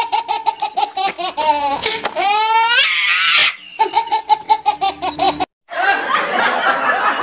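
Dubbed-in laughter sound effect: a rapid, high-pitched staccato laugh, with a rising squealing run about two seconds in. The laugh cuts out briefly after about five seconds and comes back as a denser, noisier burst of laughing.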